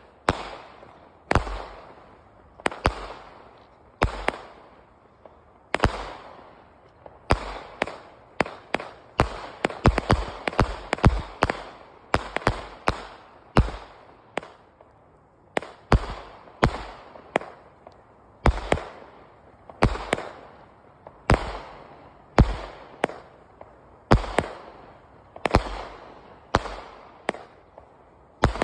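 A 100-shot consumer firework cake firing its shots one after another, a sharp bang about every second, each trailing off before the next. A quicker flurry of bangs comes about a third of the way through.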